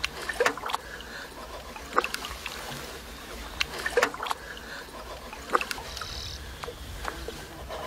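Small splashes and trickling water at the side of a boat as a king salmon is held in the river to revive it before release, a short splash every second or two over a low steady rush.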